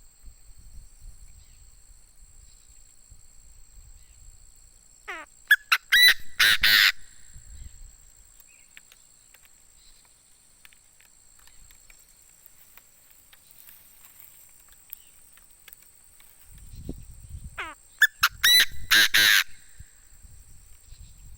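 Decoy Chinese francolin (đa đa) calling: two loud bouts of quick, harsh notes about twelve seconds apart, over a steady high insect drone.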